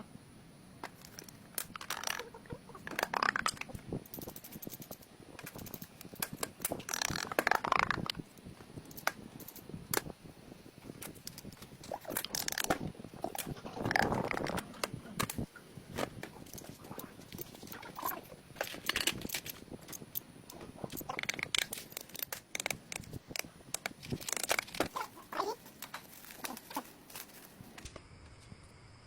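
Irregular hands-on work noises: scraping and crinkling strokes, each a second or so long, mixed with scattered sharp clicks and knocks.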